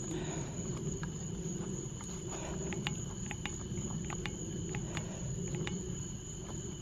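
Crickets trilling steadily at night, a high steady tone with a lower one beneath it, over a low rumble, with scattered faint clicks.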